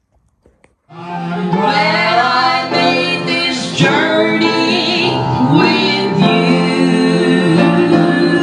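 A woman singing a song into a microphone over instrumental accompaniment, starting about a second in.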